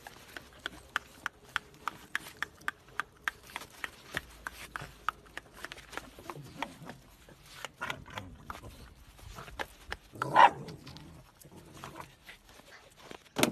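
Shiba Inus play-fighting: a run of sharp clicks and taps, about three a second, then one louder dog cry about ten seconds in.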